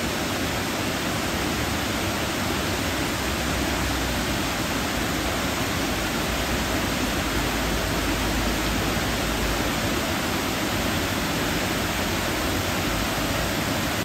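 Waterfall: water pouring down a man-made stepped cascade of stone blocks, a steady, dense rush that does not change.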